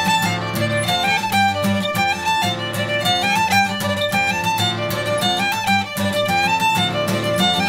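Shetland traditional fiddle tune played on fiddle, a quick-moving melody over steady guitar backing.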